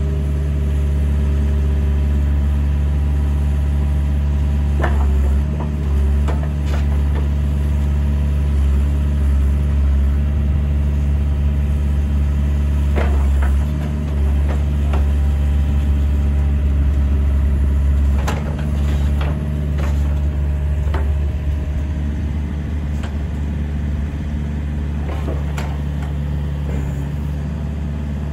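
2012 Hitachi ZX48U-3 mini excavator's diesel engine running steadily while the boom and arm are worked hydraulically, with a dozen or so short knocks scattered through. It eases slightly about two thirds of the way in.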